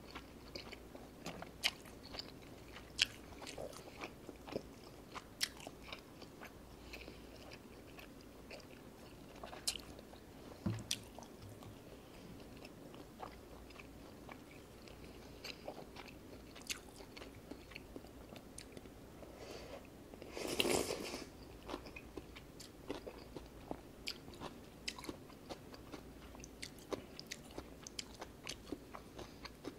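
Close-miked eating: chewing tteokbokki rice cakes and ramen noodles, with many short wet mouth clicks and smacks. A louder noisy sound lasting about a second comes about two-thirds of the way through.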